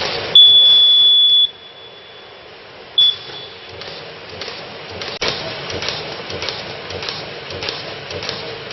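Plastic bag making machine running with a steady rushing noise that drops away as a long, high electronic beep sounds about half a second in; a second short beep follows about three seconds in. A sharp click comes near the middle, and the machine's noise starts up again.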